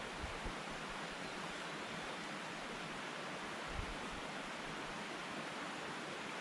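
Steady rushing of a small stream's running water, with one brief low thump a little over halfway through.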